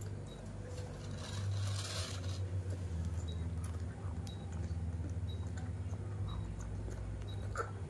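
Baby macaque suckling milk from a plastic bottle: soft, quick sucking and small wet clicks over a steady low hum.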